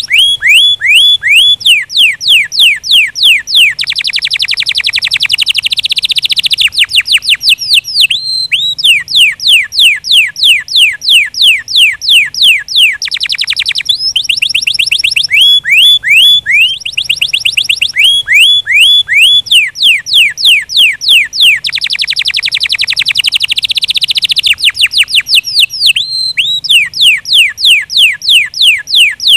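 Domestic canary singing: long rolls of rapid, high-pitched trilled notes, each a quick sweep in pitch, switching between slower and faster rolls every second or two with brief pauses. The same song passage repeats about every fourteen seconds.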